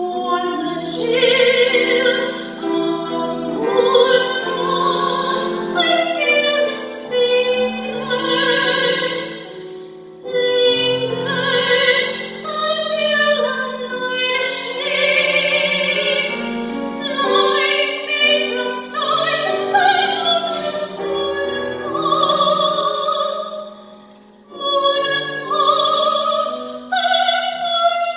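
A woman singing a slow ballad in operatic soprano style with vibrato, accompanied by a Steinway grand piano. The voice drops away briefly twice between phrases.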